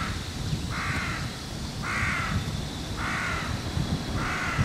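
A crow cawing five times, about a second apart, each caw harsh and about half a second long, over a steady low rumble.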